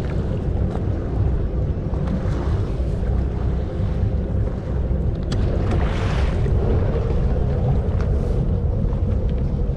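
Motorboat under way: its engine running and the hull rushing through the water, with wind buffeting the microphone, growing a little louder after about six seconds.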